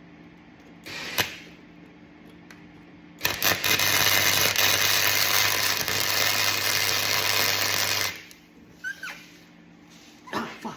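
Electric welding arc crackling steadily for about five seconds over a low mains hum, starting a few seconds in and cutting off suddenly, as a bolt is welded onto a stripped hinge screw to undo it. There is a short noise about a second in.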